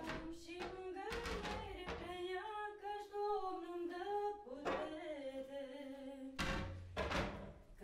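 A woman singing a slow melody with long held notes, with several dull knocks at irregular moments.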